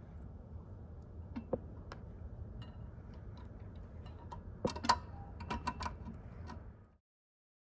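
Small metal clicks and taps of 4 mm Allen bolts being threaded by hand into a spin bike's brake pad bracket, scattered at first and busiest from about five seconds in.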